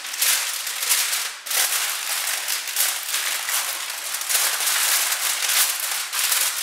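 Aluminium foil crinkling and crackling as hands fold and crimp it shut to seal it. A dense, irregular run of rustling crackles, with a brief dip about a second and a half in.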